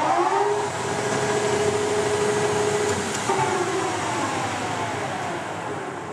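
Leblond Regal Servo-Shift engine lathe running under power, its headstock gearing giving off a steady whine. The pitch rises at the start, holds, shifts about three seconds in, then falls away as the spindle slows down.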